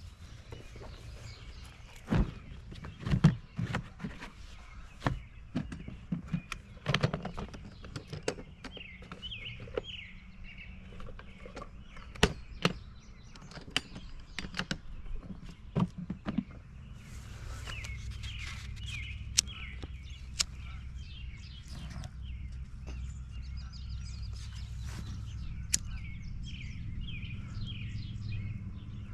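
Knocks and clatters of a black plastic storage box being carried, set down on the grass and opened, with birds chirping throughout. A little past halfway a steady low rumble sets in, with a few sharp clicks over it.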